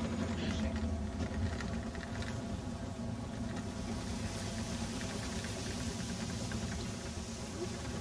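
Tour boat's motor running steadily, a low even drone. A hiss comes in about halfway through.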